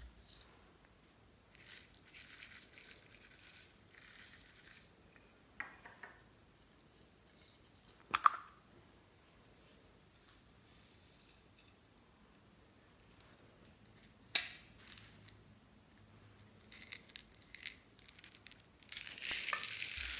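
Small plastic add-ins poured from clear plastic heart-shaped containers into glass dishes, rattling and pattering on the glass, with scattered clicks and knocks of the plastic containers. The loudest is a pour of small beads lasting about two seconds near the end.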